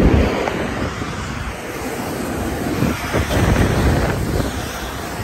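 Wind buffeting the phone's microphone: a steady rushing noise that swells in gusts at the start and again midway.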